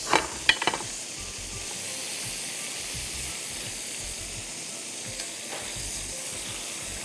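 Chicken breast fillets searing in hot oil in a pan, a steady sizzle. A few sharp clicks come in the first second.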